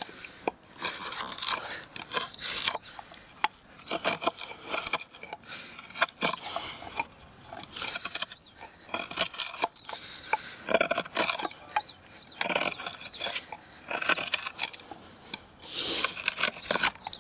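Lionsteel SR-1 knife with a D2 steel blade cutting into a wooden bar, the wood cracking and splitting as the blade is pressed and levered to tear chips out of the notch. The crackling and snapping come in uneven runs of strokes with short pauses between them.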